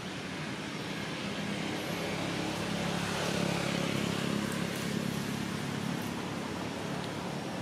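A motor vehicle passing, its engine drone swelling to a peak about three to four seconds in and then fading, over a steady outdoor hiss.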